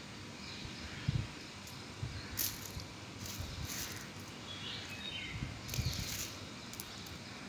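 Quiet outdoor background noise with a few brief high hissy rustles and faint short chirps about halfway through.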